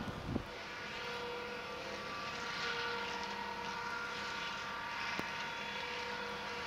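New Holland tractor working a flail hedge cutter, running with a steady multi-tone whine. It starts after a brief buffet of wind on the microphone and a knock, and there is a single sharp click about five seconds in.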